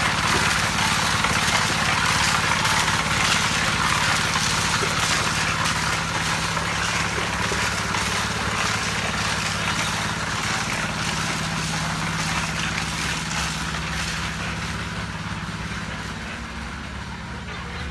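An engine running steadily under a continuous gritty rattle and hiss, typical of concrete-pouring machinery at work. It eases off slightly near the end.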